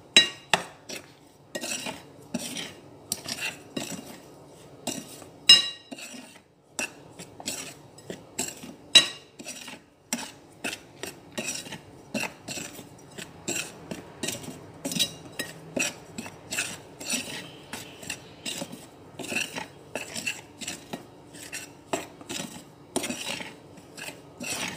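Metal spoon stirring a dry flour mixture by hand in a metal bowl: repeated scrapes and clinks of the spoon against the bowl, one or two a second, with a few sharper clinks about five and nine seconds in.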